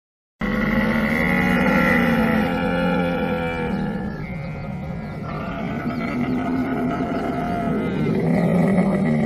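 Camel vocalising: a loud, low, drawn-out call that starts abruptly about half a second in, eases off around four seconds in and swells again near the end.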